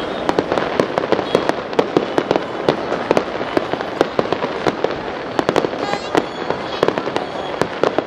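Fireworks display with aerial shells bursting: a rapid, irregular string of sharp bangs and pops, several a second, over continuous crackling.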